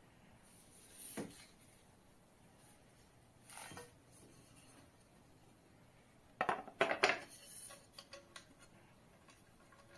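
Hard monitor stand parts, the arm and the base, handled and knocked together, with a quick cluster of sharp clacks about six and a half to seven seconds in, then a few small ticks as the thumbscrew under the base is turned.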